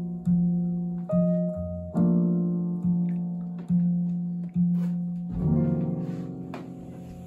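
Music playing from a Monster Adventurer Force Bluetooth speaker: a song of single pitched notes, each starting sharply and dying away, about one a second. The last note rings out and fades near the end.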